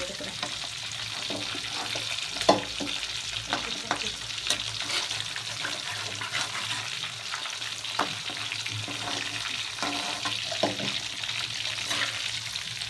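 Fish pieces sizzling as they shallow-fry in hot oil in a kadai, with a metal spatula scraping and knocking against the pan several times as the fish is turned and lifted out. The loudest knock comes about two and a half seconds in.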